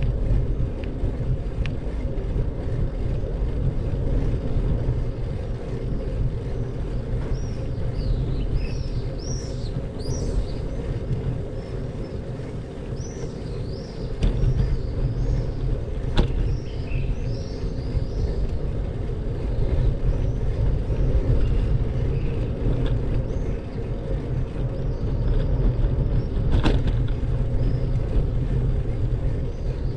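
Steady low rumble of road and wind noise from a vehicle moving along a street, picked up by a low-mounted camera. A run of short high chirps comes through in the middle, and there are two sharp clicks, one midway and one near the end.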